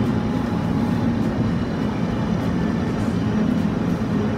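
Steady low rushing noise of a tiered stainless-steel seafood steamer pot boiling hard and venting steam.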